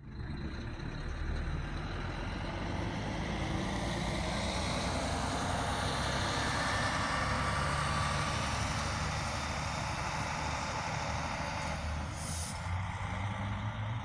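Diesel engine of a coach bus running steadily with a low rumble, growing slightly louder toward the middle. A brief high hiss sounds near the end.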